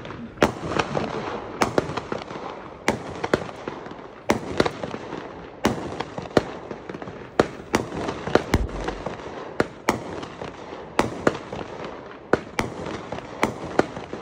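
Consumer firework cake firing: sharp reports about once a second, unevenly spaced, over a constant crackle.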